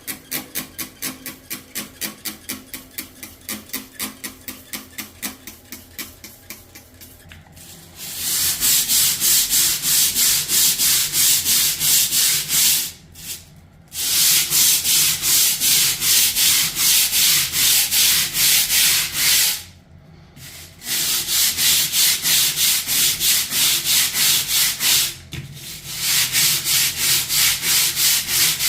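A stiff-bristled grout brush scrubbing shower tile grout in rapid back-and-forth strokes, several a second. The strokes are light at first, then much harder and louder from about eight seconds in, stopping briefly three times.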